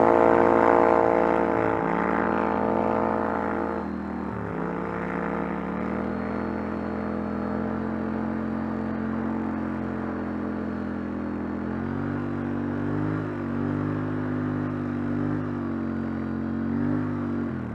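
ATV engine running under throttle on a snowy trail, a steady drone. The pitch drops sharply about four seconds in as the throttle eases off, then climbs back and holds; later it rises and falls a little with the throttle, and dips again at the very end.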